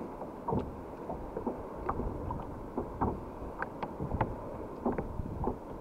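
Choppy water lapping against a kayak's hull: irregular small slaps and knocks, a few a second, over a steady wash of water.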